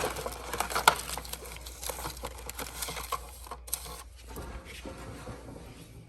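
Close handling noises: a sharp knock at the start and another about a second in, then scattered small clicks and rustles that grow fainter.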